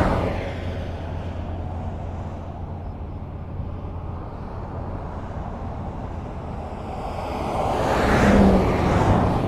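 A vehicle passing by twice. One pass fades away just as the sound begins, a steady low hum follows, and a second vehicle swells to its loudest about eight seconds in and then fades.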